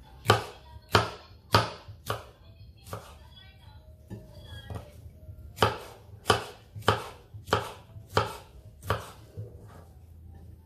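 Chef's knife slicing red capsicum on a wooden cutting board: sharp knocks of the blade against the board, a run of five a little over half a second apart, a pause of a couple of seconds, then a run of seven at the same pace.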